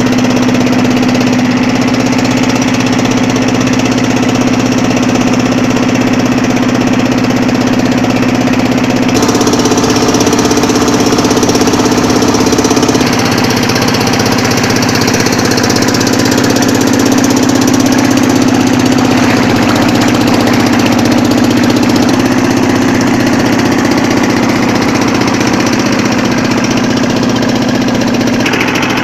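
Engine of a small wooden river boat running steadily under way, a loud continuous drone whose pitch shifts slightly a few times.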